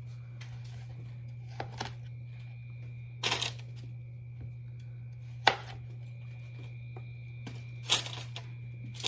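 Chef's knife cutting through softened kabocha squash wedges on a parchment-lined metal sheet pan: four separate knocks and scrapes, the sharpest about halfway through, over a steady low hum.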